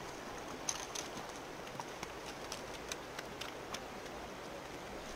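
Shallow river running steadily over gravel, with scattered faint ticks.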